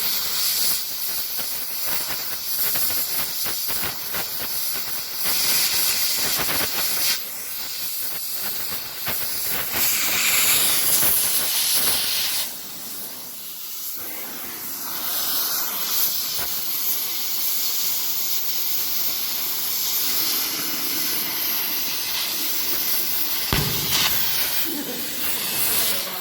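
Gas cutting torch hissing steadily with fine crackling, easing off briefly about halfway through and then picking up again.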